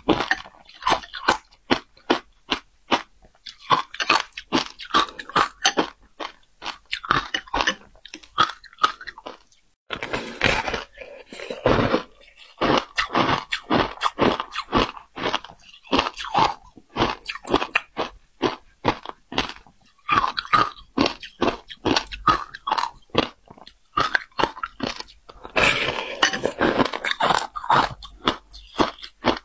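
Shaved ice topped with passion fruit pulp being bitten and chewed close to the microphone: rapid crisp crunches, several a second, with two short pauses midway.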